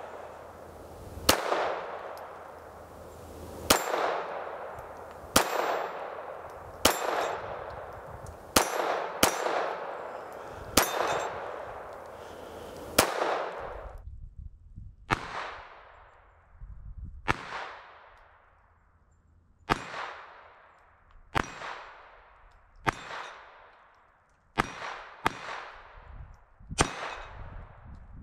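Phoenix Arms HP22A .22 LR semi-automatic pistol fired in a long string of about eighteen shots, one to two seconds apart and quicker near the end. Each shot is followed by a ringing clang, as from hanging steel targets being hit.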